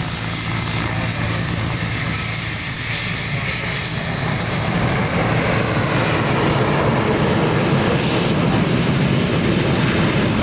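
WWII-era propeller aircraft taxiing, their piston engines running at a steady low rumble. It grows louder about halfway through. A thin high whine is heard over it for the first few seconds, then stops.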